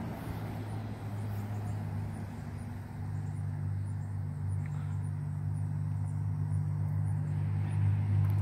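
A steady low engine or motor hum, getting louder in the second half.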